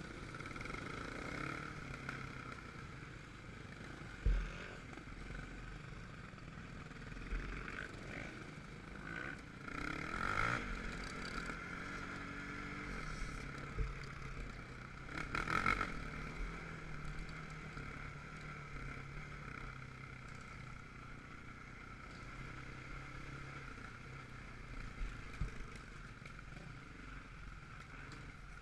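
Quad (ATV) engine running while riding off-road, its pitch rising and falling with the throttle, with a few knocks and thumps from the ride; the sharpest thump is about four seconds in.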